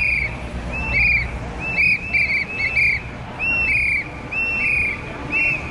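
Whistles blown in short repeated blasts, two or three a second and several overlapping. They are the loudest sound, over a steady low crowd rumble.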